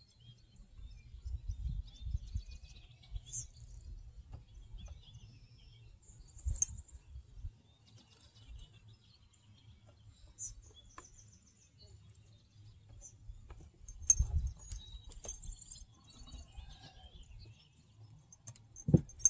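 Faint open-air ambience: a low rumble, a few faint high bird chirps, and scattered light clicks and knocks of fishing tackle being handled, with a louder thump near the end.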